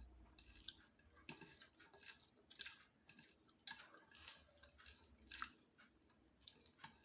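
Faint, wet chewing and mouth clicks of a person eating, in short irregular smacks.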